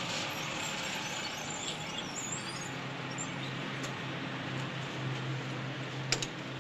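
Car engine running steadily, with one sharp click about six seconds in.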